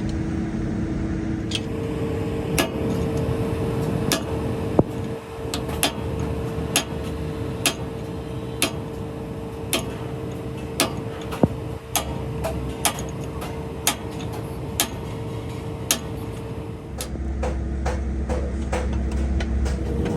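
Short, sharp knocks, about one a second, over a steady machine hum.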